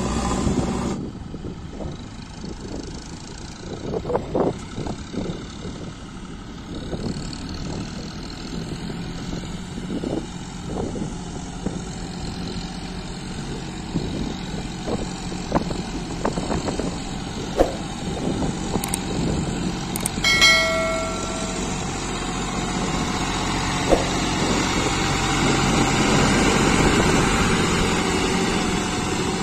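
John Deere 5050D tractor's three-cylinder diesel engine running steadily as it pulls a loaded soil trolley, with scattered knocks and rattles. A short pitched beep sounds about two-thirds of the way through, and the engine noise swells a little near the end.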